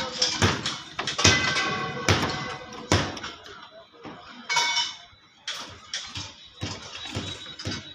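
Irregular knocks and clanks from construction work, one or two a second, several with a brief ring.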